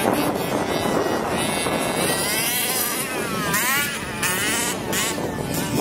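Two-stroke petrol engine of a fifth-scale RC car revving up and down as the throttle is worked, the pitch sweeping rapidly up and down from about two seconds in, over a steady hiss.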